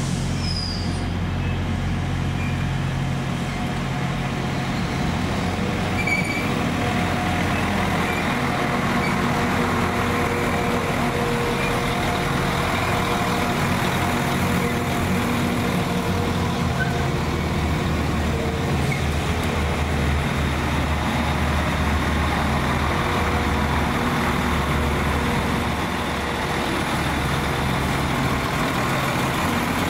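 Northern class 195 and class 158 diesel multiple units running, a steady low engine hum. A short high squeal falls in pitch in the first second as the arriving unit brakes.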